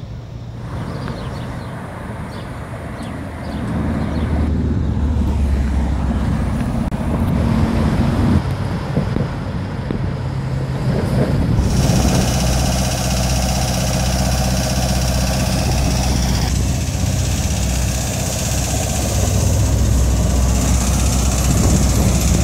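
Street traffic: vehicle engines and tyres passing, with a truck among them. The sound changes abruptly a few times, like separate clips joined together.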